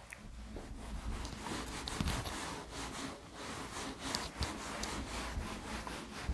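Handwriting on a writing surface: a quick run of short scratching strokes, about three a second.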